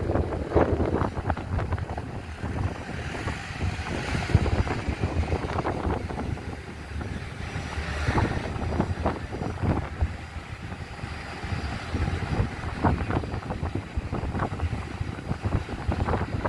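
Wind buffeting the microphone in irregular gusts, a steady low rumble with sharper thumps as gusts hit.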